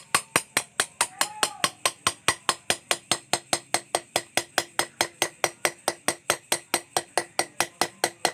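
Hammer tapping a thin pointed steel chisel into a metal engine case, about five quick, even strikes a second, each with a short, high metallic ring, as the chisel is walked along a traced engraving line.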